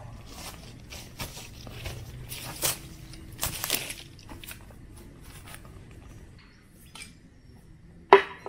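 Metal spoon scraping and squishing through thick dip in a stainless steel bowl, a run of scoops and scrapes, the strongest about two to four seconds in. Near the end, a single sharp, loud clink.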